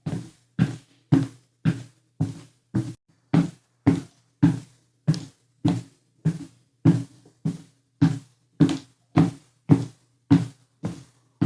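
Footsteps climbing a staircase at a steady walking pace, about twenty even, thudding steps, just under two a second.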